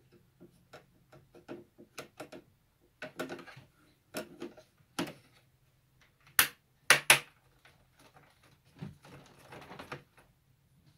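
Plastic fan guard grille being fitted onto the top of a BALMUDA AirEngine air purifier: light plastic taps and rattles, then three sharp snap clicks about six to seven seconds in as the grille locks into place, then a softer scraping near the end.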